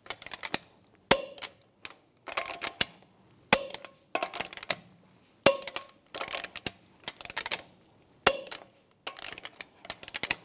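Click-type torque wrench tightening lug nuts to 140 foot-pounds in a cross pattern: short bursts of ratcheting and four sharp clicks about two to three seconds apart, each click the wrench reaching its set torque.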